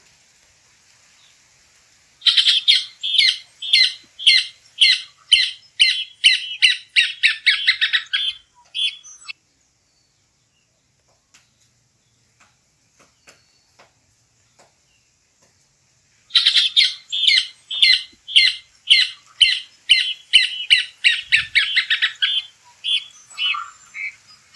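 Caatinga cacholote (casaca-de-couro) singing: two loud bouts of rapid, harsh repeated notes, each lasting six to eight seconds and quickening toward its end, with a quiet gap of several seconds between them.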